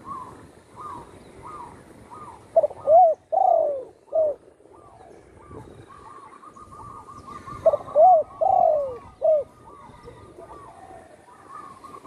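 Spotted dove (tekukur) singing its cooing song: two phrases about five seconds apart, each of two short coos, a long drawn-out coo and a short final one. Fainter, higher chirping notes repeat in between.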